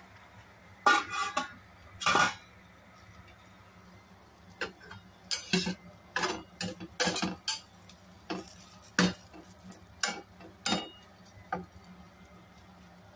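Metal spatula knocking and scraping against a stainless-steel frying pan while stirring chicken pieces: irregular sharp clanks, two loud ones in the first two seconds, then a busy run of strikes and scrapes in the middle, over a low steady hum.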